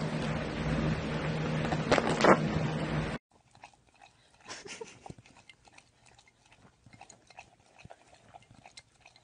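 A loud noisy rush with a steady low hum and a sharp sound about two seconds in, cut off suddenly. Then a dog lapping water from a drinking glass: faint, scattered wet licks and clicks.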